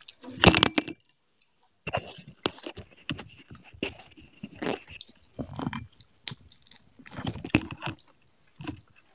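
Eating sounds: chewing and wet mouth smacks from people eating rice and chicken curry by hand, with a loud bite about half a second in and irregular sharp clicks and crunches after it.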